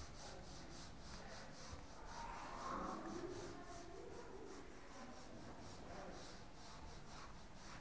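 Faint rubbing of a duster being wiped across a whiteboard to erase it.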